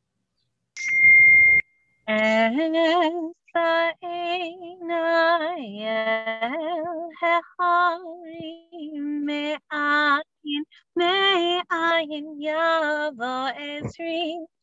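A woman cantor singing solo and unaccompanied, a slow melody with long held notes and vibrato, heard over a video call. About a second in, a short, loud electronic tone with a rush of noise comes before the singing begins.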